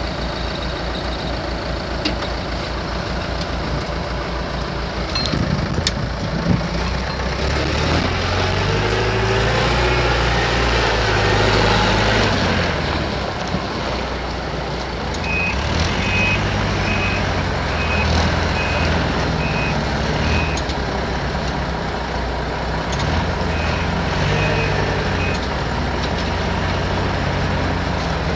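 Heavy diesel engines of a semi truck and a wheel loader running, with one engine revving up about eight seconds in and settling again. A backup alarm beeps steadily, about one and a half beeps a second, for several seconds in the middle and again briefly later.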